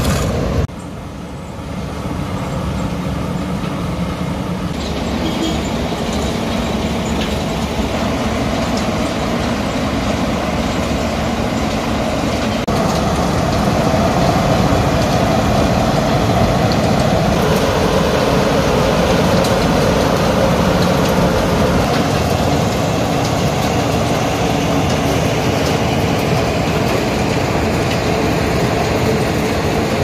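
Remora 1000 DC asphalt cold milling machine running, a loud, steady mechanical din of its diesel engine and cutting drum milling off the road surface. It dips about a second in, then builds and stays louder through the second half.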